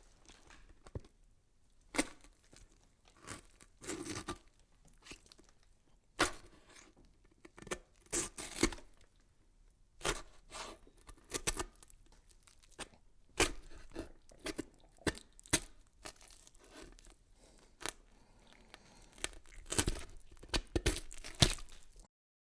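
Irregular crackling and crinkling noises: a series of short sharp sounds at uneven intervals, some in quick clusters, with the loudest near the end.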